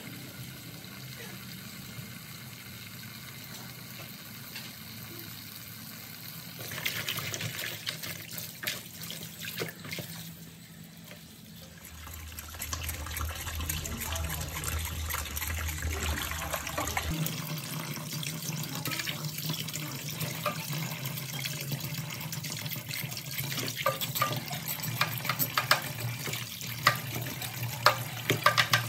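Tap water running into a plastic basin in a sink, splashing as water mimosa and then a fish are washed under it. Near the end come many sharp scrapes and knocks as a cleaver scrapes the scales off the fish.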